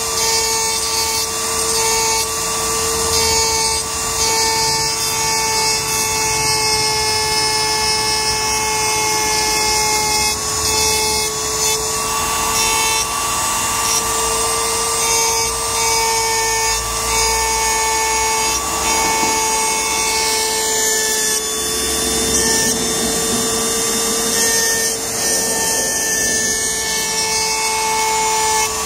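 Handheld rotary engraving tool running with a steady whine while its fine bit scratches lines into polished black granite.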